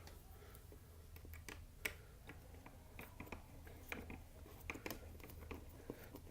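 Faint scattered clicks and small metal taps of a screwdriver working a skateboard truck's mounting bolts as they are tightened, with one sharper click about two seconds in, over a low steady hum.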